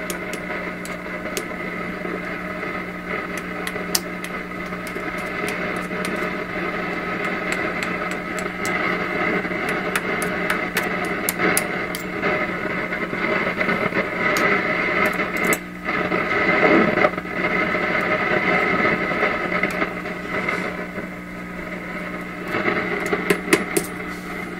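PYE 39HC valve shortwave receiver's speaker putting out static with steady whistling tones, a low hum and frequent sharp crackles. The sound drops out briefly about sixteen seconds in and cuts away near the end, typical of the intermittent fault being hunted in the set.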